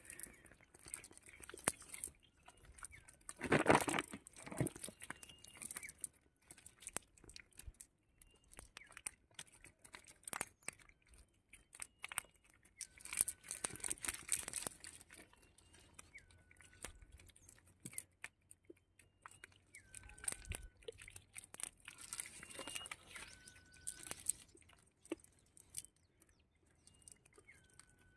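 Dry leaves and debris crackling and rustling in irregular bursts, loudest about four seconds in. Behind it a bird calls over and over, each call a short high note dropping to a lower one.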